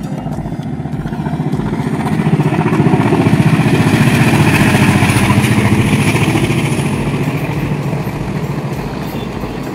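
Passenger train passing: a fast-pulsing engine rumble that swells to its loudest around the middle and then slowly fades as the coaches run by.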